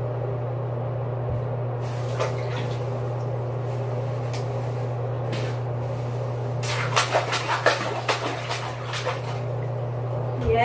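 Clicks, crinkles and knocks as new bath toys are unwrapped from their packaging and handled at the tub's edge, busiest in a run of quick clicks about two-thirds of the way through. A steady low hum runs underneath.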